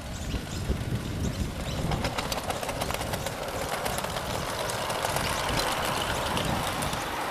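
A small ridden live-steam miniature locomotive running past close by: rapid exhaust beats and wheels rattling on the rails, with a hiss, growing louder as it goes by.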